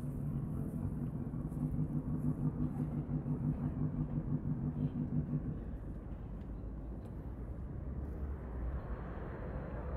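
A low, steady motor hum, pulsing a few times a second like an idling vehicle engine, that stops about halfway through, leaving a low outdoor rumble.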